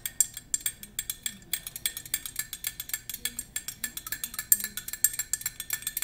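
A spoon stirring coffee in a ceramic mug, clinking quickly against the inside, several clinks a second with a ringing tone from the mug. The clinks come faster from about a second and a half in.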